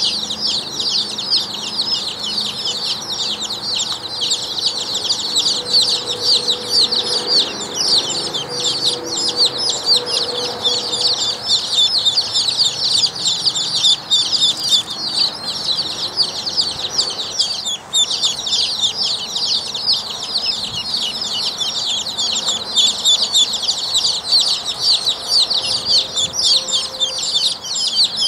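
Buff ducklings peeping nonstop: a dense stream of short, high-pitched peeps, many a second and overlapping.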